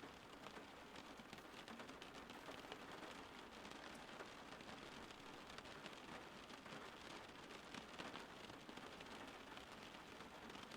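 Faint, steady rain: a dense, even sound of many small drops striking a surface.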